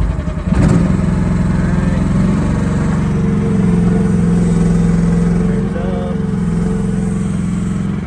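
Small gasoline engine of a mini excavator running just after starting, steady, picking up a little in the middle and then settling back.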